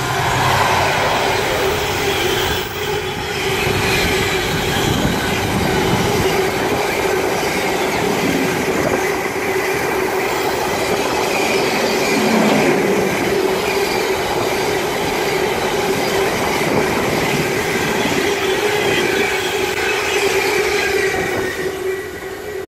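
A long container freight train's wagons rolling past on the main line, a continuous rumble and clatter of steel wheels on rail with a steady tone running through it.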